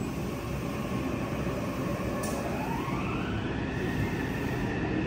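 Interior running sound of a Yokohama Municipal Subway 3000R-type train: the whine of its Mitsubishi IGBT-VVVF inverter drive rises in pitch about halfway through as the train accelerates. Underneath is a steady rumble of the wheels on the rails, heard from inside the car.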